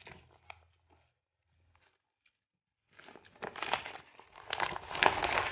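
Empty greasy paper food wrapper being folded and crumpled by hand, starting about three seconds in and getting louder, after a few faint taps.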